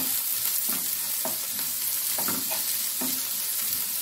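Chopped onion, coconut pieces and chillies sizzling in hot coconut oil in a nonstick frying pan while they are sautéed until soft. A spatula stirs and scrapes the pan, making repeated short scrapes over a steady hiss.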